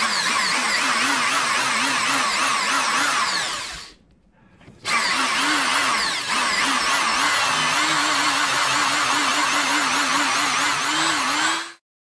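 Electric drill boring into the stripped metal pivot screw of a balisong knife to drill it out, its motor pitch wavering as the bit bites. It runs about four seconds, stops for about a second, then runs again for about seven seconds and cuts off near the end.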